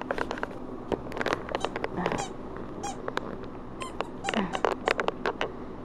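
A dog chewing a yellow rubber squeaky toy. It comes in bursts of quick, short squeaks and clicks as its jaws bite down again and again.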